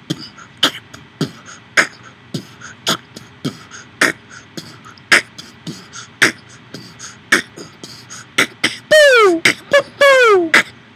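Vocal beatboxing: a steady beat of mouth-made kick and snare sounds with lighter clicks between, the loudest strokes about a second apart. About nine seconds in, a run of loud vocal glides, each falling in pitch, joins the beat.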